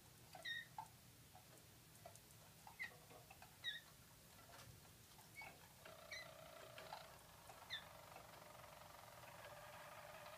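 Harzer roller canaries: scattered short, sharp chirps, then about six seconds in a low, continuous rolling song begins and carries on, faint.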